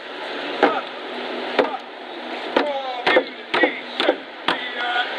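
Hand drum struck in an uneven beat, sharp strikes about half a second to a second apart, with voices between the strikes.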